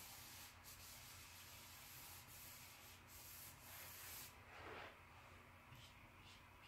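Faint rubbing of a cloth wiping marker off a whiteboard, in repeated strokes for about four seconds.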